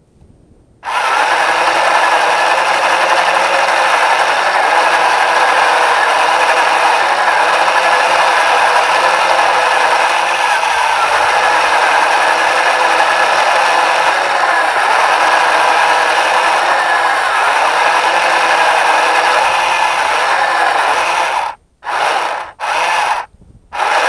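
The drive motors and gears of a small tank-tracked FPV rover running as it drives, a steady mechanical whir and grind picked up by its onboard camera. It starts about a second in and cuts out briefly three times near the end as the rover stops and starts again.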